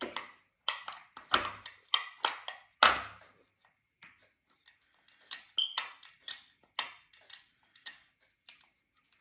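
Sharp metal clicks and knocks as a distributor is turned and reseated in an engine block, five strong ones in the first three seconds, the loudest near three seconds, then lighter, scattered ticks.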